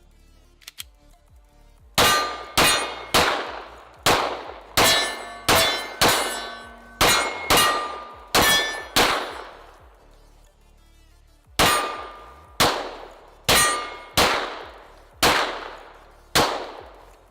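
Bullets hitting steel targets, each hit a sharp clang that rings and fades. A quick string of about eleven hits, a pause of a couple of seconds, then six more.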